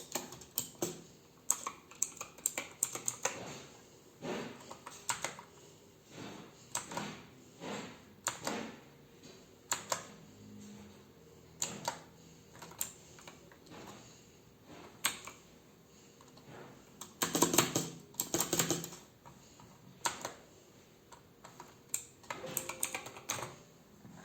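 Kinamax MK-89 mechanical keyboard with clicky blue switches being typed on: irregular sharp keystroke clicks, with a quick flurry of presses about seventeen seconds in.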